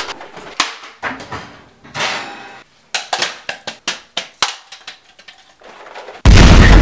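A string of sharp knocks and clicks, irregular and some in quick clusters. About six seconds in, a very loud sudden blast, heavy in the low end, starts and carries on.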